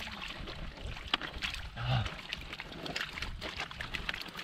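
Catfish thrashing in shallow muddy water while hands scoop through the mud: an irregular run of short wet slaps, splashes and squelches.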